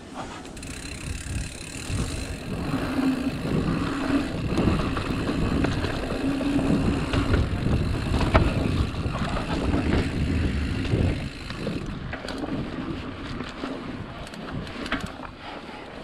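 Mountain bike ridden along a dirt trail: tyres rumbling over the ground and the bike rattling, with wind buffeting the microphone. It is loudest in the middle and eases off about twelve seconds in.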